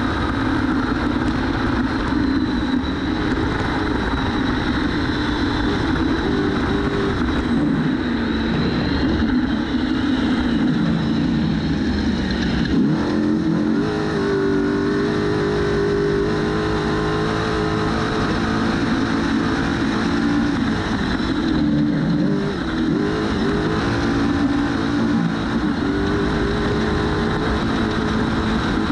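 Trophy truck engine running hard while racing, heard from on board, its pitch rising and falling as the truck accelerates and lifts, with two clear drops in revs, one about halfway through and one later. A steady wind and tyre noise runs under it.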